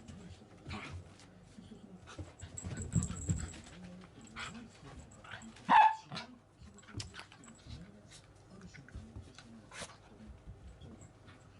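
Small mixed-breed dog (Dachshund–Toy Poodle cross) giving a single short bark about six seconds in, among faint scattered clicks and rustles.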